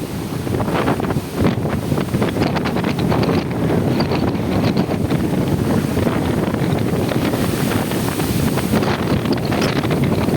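Gale-force wind of about 25 m/s buffeting the microphone: a continuous loud rumble with irregular gusts.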